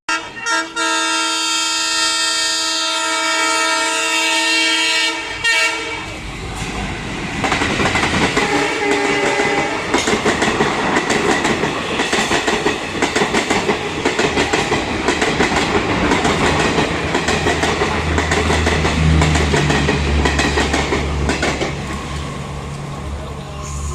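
ALCo diesel locomotive of Indian Railways sounding a long horn blast for about five seconds, then a passenger train passing at speed with wheels clattering over the rail joints. A deeper rumble builds in the last several seconds.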